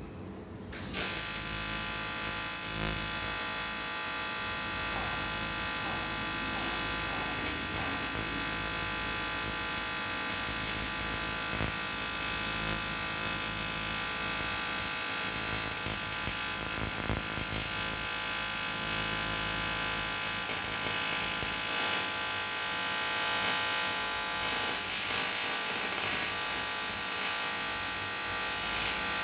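AC TIG welding arc on an aluminium cylinder block, struck about a second in, then buzzing steadily with a high hiss.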